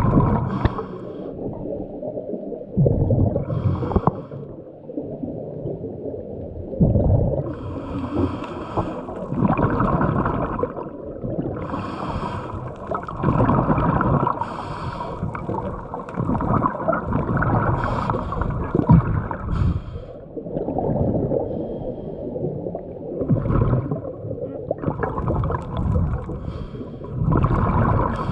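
A diver breathing underwater: hissing breaths alternating with gurgling bursts of exhaled bubbles, in irregular surges every couple of seconds.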